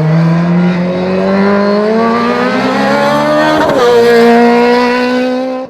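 Osella PA 21 S Evo Honda race car's engine accelerating hard, its pitch climbing steadily through a gear, then dropping sharply on an upshift about two-thirds of the way in and climbing again. The sound cuts off abruptly near the end.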